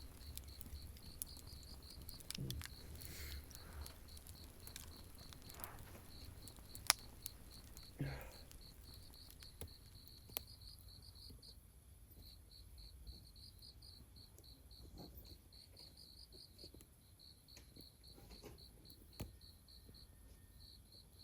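Crickets chirping in a steady, evenly pulsed high trill at night, with scattered sharp crackles and pops from a campfire; the loudest pop comes about seven seconds in.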